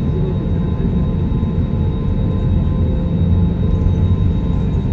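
Airbus A320neo cabin noise while taxiing: a steady low rumble from the engines and airframe with a few steady whining tones over it.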